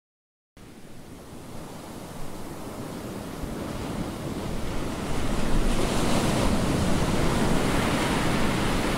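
Sea surf washing and breaking over a rocky shore, fading in from silence over the first five seconds and then steady, with wind on the microphone.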